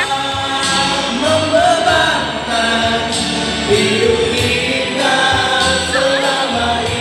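Two men singing into handheld microphones, amplified, over instrumental accompaniment with a steady beat.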